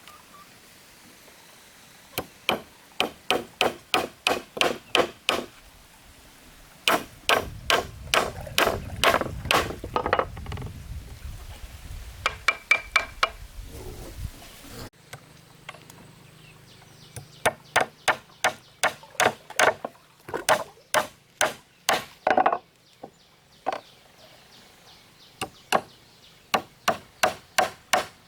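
Runs of quick, sharp tool strikes, about three a second, with short pauses between the runs, like steady chopping or hammering.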